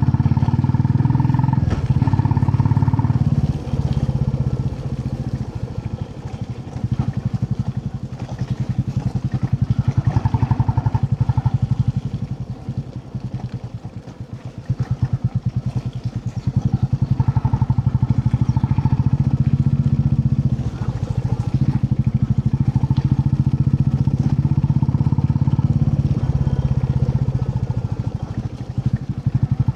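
Royal Enfield Classic 350's single-cylinder engine running under way, the exhaust pulsing steadily. The throttle eases off twice, about four seconds in and again around the middle, before it picks up again.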